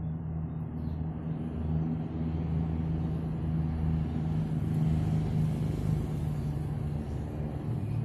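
An engine running steadily nearby: a low, even hum that slowly grows a little louder.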